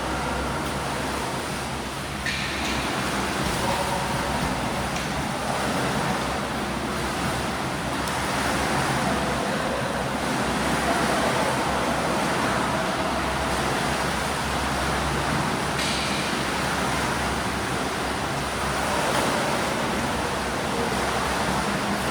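Swimming pool ambience: steady churning and splashing of water from swimmers doing breaststroke drills.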